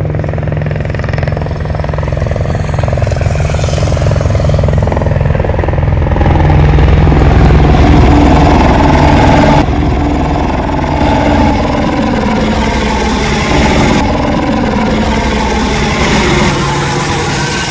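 Light single-engine helicopter flying low overhead: steady rotor-blade chop with a turbine whine. It grows louder as it approaches and is loudest a little past the middle, and the whine drops in pitch as it passes.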